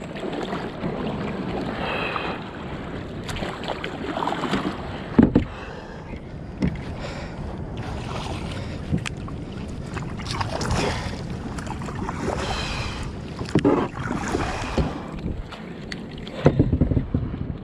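Wind buffeting the microphone over water sloshing around a kayak, with a couple of sharp knocks against the hull about five seconds in and again near the end.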